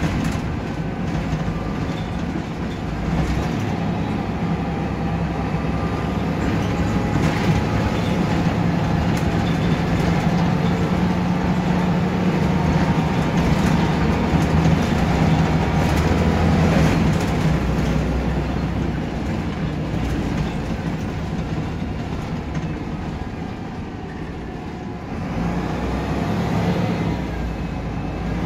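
Volvo B7RLE bus's rear-mounted diesel engine running as the bus drives along, heard from inside the passenger saloon, with light rattles through the body. The engine note rises and falls with the drive, easing off a few seconds before the end and then picking up again.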